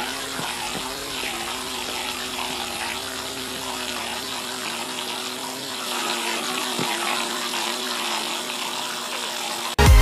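Small high-speed DC motor of a homemade foam boat buzzing steadily as it drives the propeller, its pitch wavering slightly, over a constant hiss. Loud electronic dance music cuts in abruptly just before the end.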